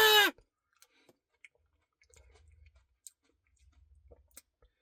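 A loud wailed vocal falls in pitch and breaks off right at the start. Then near silence with faint, scattered mouth clicks of someone chewing a Cookie Blizzard.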